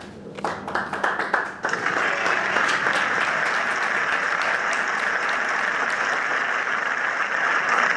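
Audience applauding: a few separate claps at first, rising to steady, fuller applause a little under two seconds in.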